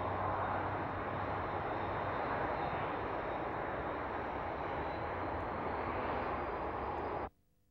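Panavia Tornado's twin RB199 turbofan engines in afterburner, steady jet noise as the aircraft takes off and climbs away. The sound cuts off suddenly near the end.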